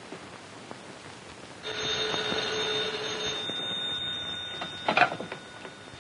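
Desk telephone bell ringing, one steady ring of about three seconds starting nearly two seconds in, then a sharp clatter as the handset is lifted off its cradle.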